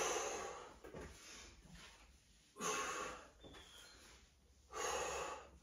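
A person breathing hard from the effort of dumbbell sit-up crunches: three noisy exhales about two seconds apart.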